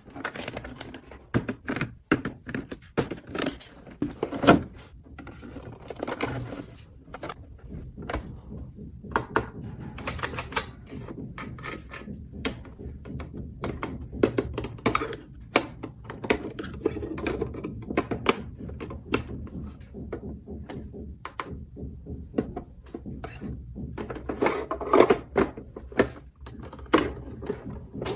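Small plastic toy pieces being handled, with many quick clicks and knocks in irregular runs.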